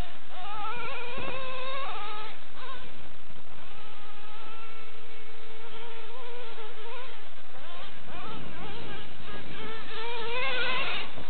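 Dynamite .28 big-block nitro engine in a Traxxas Revo RC monster truck, buzzing at high revs as the truck drives, its pitch rising and falling with the throttle, loudest near the end.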